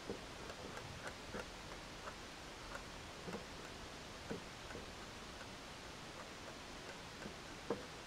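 Light, irregular taps and clicks of equipment being handled at a beehive, about ten in all, the sharpest near the end, over a faint steady hiss.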